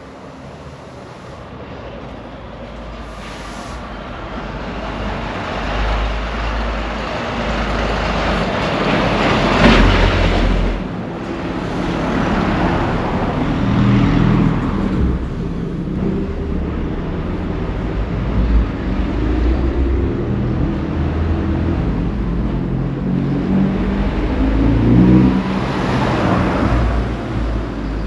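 Road traffic: motor vehicles passing close by on a street, engine rumble and tyre noise swelling up to a peak about ten seconds in and again near the end.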